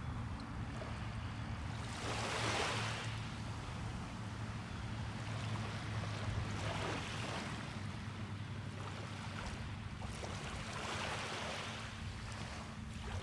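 Small waves breaking on a beach, three swells of surf rushing in, over a steady low hum.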